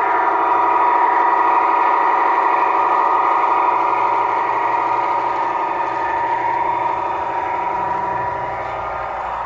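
Diesel locomotive engine sound, running steadily with a strong hum, as played by a G-scale model locomotive's sound unit.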